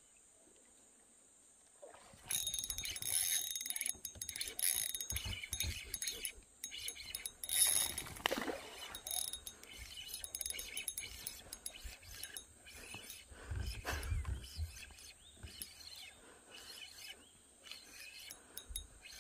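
Fishing reel being cranked while the line is worked, starting about two seconds in: irregular clicking and rattling from the reel and rod, with a few dull knocks against the kayak.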